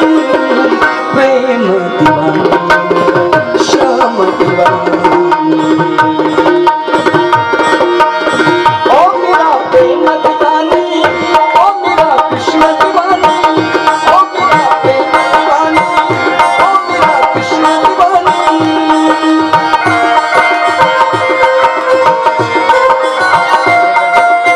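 Instrumental interlude of a Krishna bhajan: tabla playing a fast, steady rhythm under harmonium chords and a keyboard melody line with some gliding notes.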